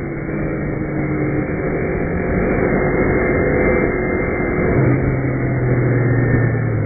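Kawasaki Ninja 250 parallel-twin engine running under way, heard through wind rush on the rider's mic. The engine note holds steady and grows stronger about five seconds in.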